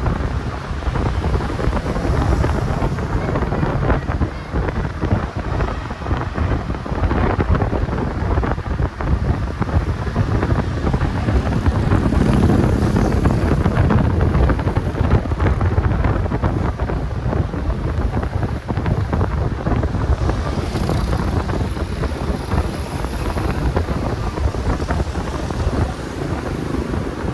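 Steady wind rush on the microphone over engine and road noise of traffic, as heard from a moving motorcycle; the noise swells briefly about halfway through.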